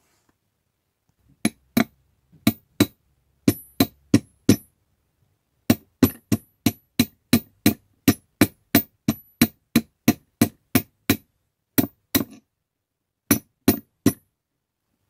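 Hammer tapping a brass bullet casing on the anvil of a steel bench vise: a run of sharp metallic blows, often in pairs, about two to three a second, each with a short high ring, with a couple of brief pauses.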